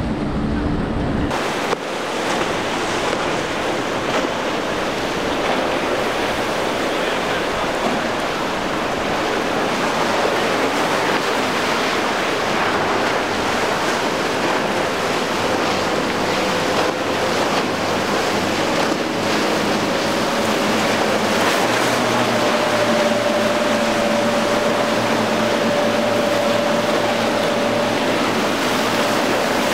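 Steady rushing of wind and choppy water, with a faint steady outboard engine drone that rises a little in pitch past the middle. A lower engine rumble cuts off about a second and a half in.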